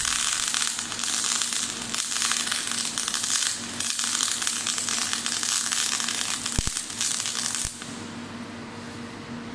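MIG (gas-shielded) welding arc from a Power Mig 500 welder: a steady, dense crackle and hiss, which stops about eight seconds in, leaving a low hum.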